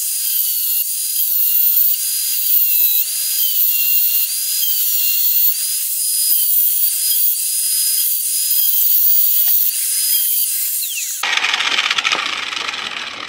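Electric angle grinder cutting a metal towbar bracket down to a thinner width, its whine dipping and recovering again and again as the disc bites into the metal. The whine cuts off about eleven seconds in, leaving a duller, rougher noise that fades near the end.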